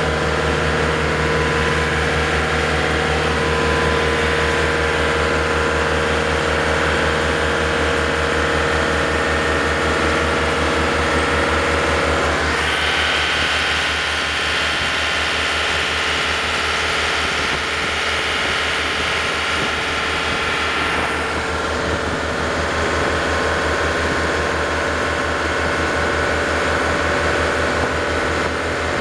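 Yanmar DE26 boat's diesel engine running steadily under way, with an even low throb and the rush of water behind the stern. For several seconds in the middle it sounds brighter and higher.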